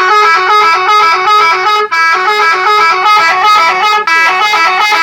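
Telolet vehicle horn playing its first tune: a loud, quick melody of stepped horn tones, with the phrase starting over about every two seconds.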